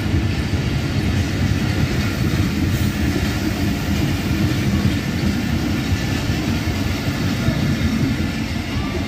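Passenger train coaches running past close by at speed: a steady, low noise of steel wheels on the rails.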